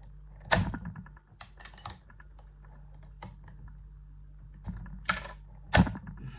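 Sharp metal clicks and clinks from handling a just-picked Yuema 750F slider padlock and its picking tools, in a few separate clusters, with the loudest click near the end.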